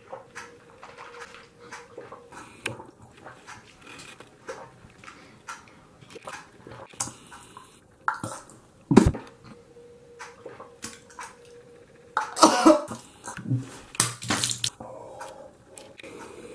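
A person sipping coffee from a mug with small slurps and mouth sounds, broken by coughing and gagging at its disgusting taste: one sharp cough about nine seconds in, and louder gagging and groaning noises about three quarters of the way through.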